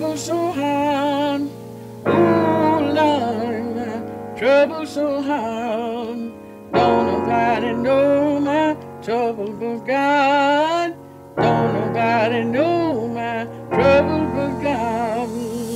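Background music: a song with a singing voice over sustained keyboard chords, in phrases with short breaks between them.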